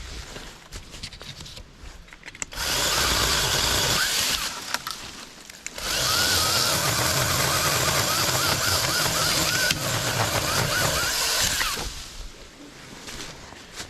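Saker 20-volt cordless mini chainsaw running in two bursts, a short one and then one of about six seconds, its motor pitch wavering up and down as it cuts through dead branches.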